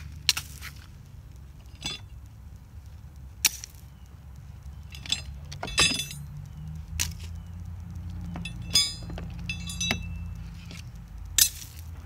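Metal hand tools clinking and clanking as they are rummaged through and picked up: about nine sharp knocks spread irregularly, a few ringing briefly, over a steady low rumble.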